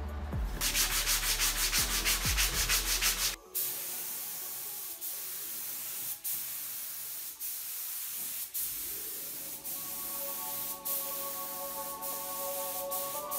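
Quick, rhythmic rubbing strokes for about three seconds, then a compressed-air gravity-feed spray gun hissing steadily as paint goes onto a car bonnet. The hiss breaks off briefly about once a second as each pass ends.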